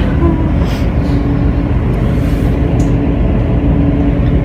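Suburban electric train running, heard from inside the carriage: a steady rumble with a steady hum.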